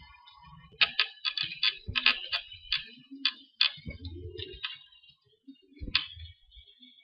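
Computer keyboard keys being typed in quick irregular runs of clicks, thinning out, with a last single keystroke about six seconds in.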